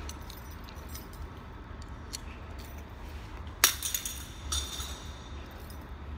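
A low steady rumble with one sharp metallic clink about three and a half seconds in, and a few fainter clicks around it.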